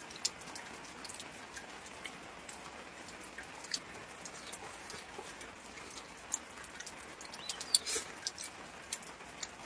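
Light rain pattering: scattered small ticks of raindrops over a faint steady hiss, a little busier near the end.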